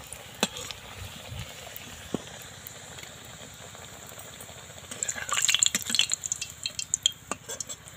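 Semolina patty frying in hot oil in a kadai: a steady sizzle with scattered small crackles. About five seconds in, a louder run of clicks and scraping for a second or so as a spatula presses and turns the patty in the pan.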